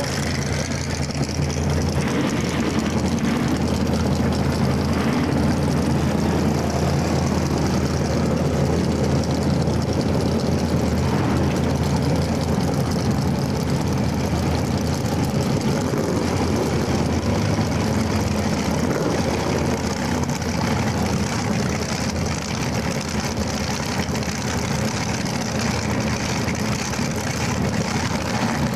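Rail dragster's engine idling steadily, without revving up.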